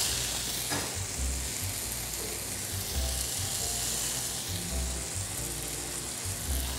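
Sate maranggi meat skewers sizzling on a hot ridged grill pan, a steady hiss, over soft background music with a low beat about every two seconds.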